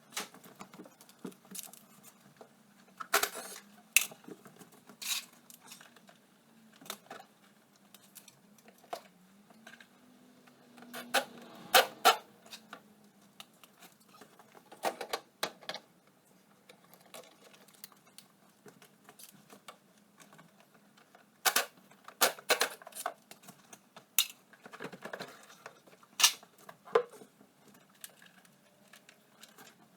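Hand tools and metal parts clinking and clattering in short irregular clusters, with the loudest knocks a few seconds in, around the middle, and through the last third, over a faint low hum.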